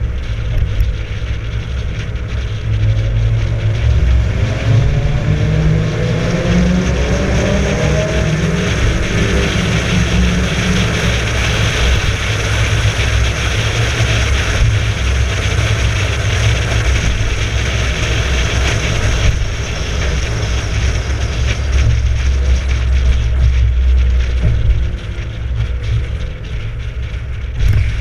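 Mk3 Toyota Supra's swapped 1JZ-GTE VVT-i turbocharged straight-six pulling hard from about three seconds in, its pitch climbing steadily for several seconds. It then cruises under heavy road and wind noise, and eases off near the end.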